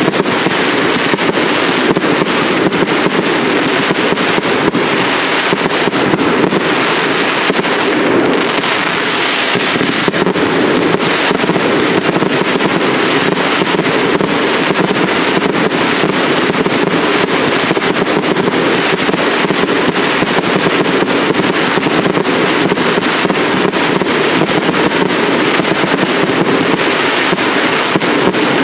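Firework cakes (multi-shot batteries) firing in rapid succession: a loud, dense, unbroken crackle of launches and bursts that goes on without a pause.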